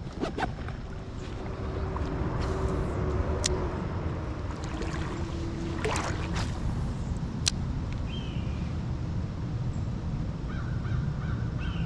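A bird calling a few times, with short calls about eight seconds in and near the end, over a steady low outdoor rumble of wind and creek water. A few sharp clicks are scattered through it.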